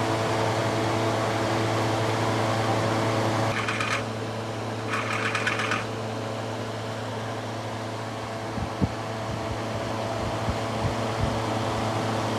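A machine's steady hum with a steady pitch. A little over three seconds in, it drops slightly and two short hissing bursts follow, then a few low knocks near the end.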